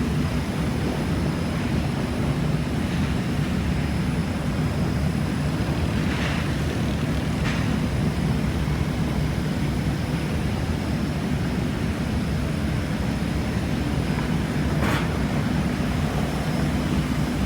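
Profile sanding machine running steadily, a constant low machine hum, with a few brief faint rasps about six, seven and a half and fifteen seconds in.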